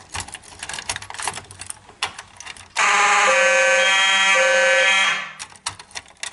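Fire alarm notification appliance giving one loud blast of about two seconds in walk-test mode, a steady tone rich in overtones with a brief change in its pattern midway. Light clicking and rattling comes before it.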